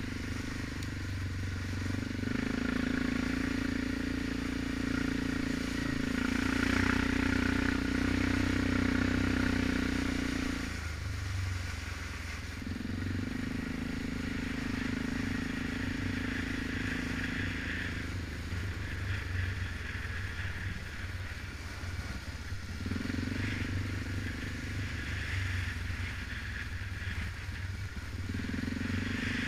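Suzuki KingQuad 700 ATV engine running on the move over a dirt trail. The throttle is eased off and back on a few times: about eleven seconds in, for several seconds past the middle, and near the end.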